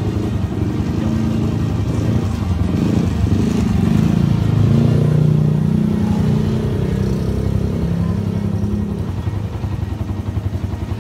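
Several motor scooter engines running as a group rides off, one passing close about halfway through and growing louder as it goes by.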